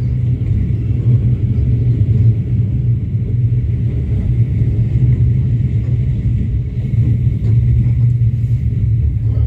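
Passenger train running along the track, a steady low rumble.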